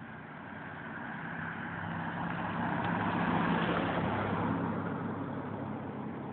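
A car passing on the street: engine and tyre noise swell to a peak about three seconds in, then fade away.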